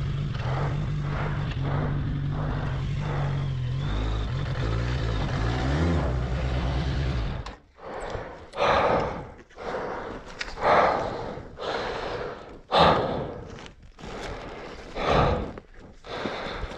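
A Suzuki Bandit 1200's inline-four engine running, with its pitch shifting briefly, then cutting out about seven and a half seconds in. After that a person breathes hard, one heavy breath about every two seconds.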